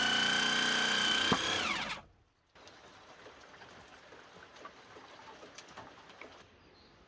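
A power tool's motor runs with a steady high whine, then is switched off about a second and a half in and winds down, its pitch falling away. After that only faint light taps and handling sounds.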